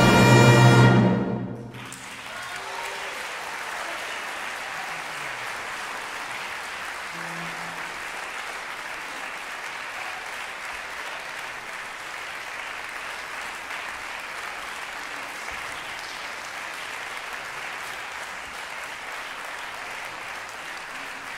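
A symphonic wind band of brass, clarinets and saxophones holds a loud final chord that cuts off sharply about a second and a half in. Steady audience applause follows.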